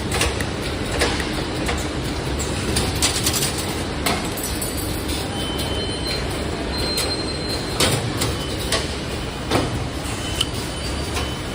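Automatic 2D CNC wire bending machine running: a steady mechanical rumble with irregular sharp clacks and knocks, and a few brief high whines.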